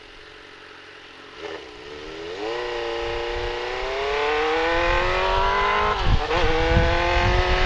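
Straight-piped Suzuki GSX-R 600 inline-four accelerating. It is quiet at first, then the engine note climbs steadily from about two seconds in, breaks briefly for a gear change about six seconds in, and pulls again. Wind rumble on the helmet camera grows as speed builds.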